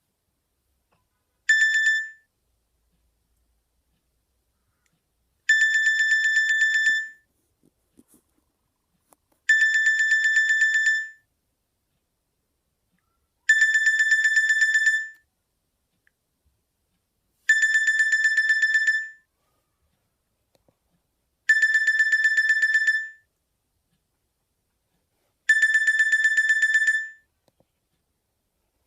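Nokia X2-00 mobile phone's loudspeaker playing a Nokia X3-00 ringtone: a rapidly trilling electronic ring at one steady pitch, sounding for under two seconds and repeating about every four seconds, like a classic telephone ring.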